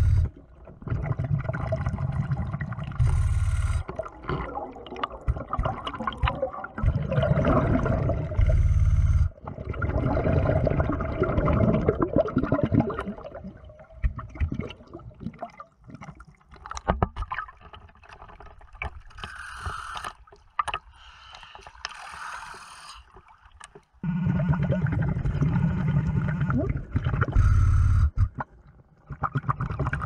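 Underwater sound of a diver breathing through a surface-supplied hookah regulator: rumbling bursts of exhaled bubbles and short regulator hisses every few seconds, with water gurgling and movement noise between. The middle stretch is quieter.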